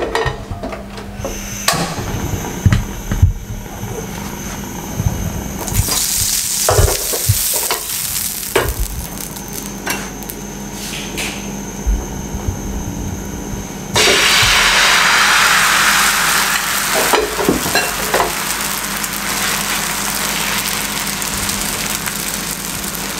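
Scattered knocks of utensils and pan over a faint hiss, then about halfway through a sudden loud sizzle as beaten egg hits the hot oiled non-stick frying pan. The egg keeps sizzling, a little quieter, as it sets.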